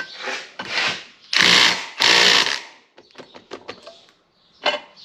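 Impact wrench hammering in two bursts of about half a second each on an intake manifold bolt of a Ford 460 V8, the bolt not breaking loose. A run of short light clicks follows.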